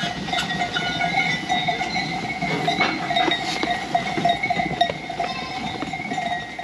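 A flock of sheep feeding at hay racks in a barn, with scattered short knocks and clicks over a steady hum.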